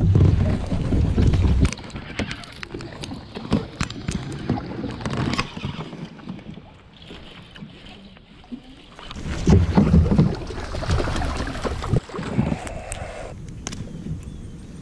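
Hooking, fighting and netting a bass from a plastic kayak: a loud low rumble of knocks and handling noise at the hookset, then scattered clicks and taps of rod, reel and hull through the fight. About nine seconds in comes a second loud burst of splashing and thumping as the fish is brought into the landing net.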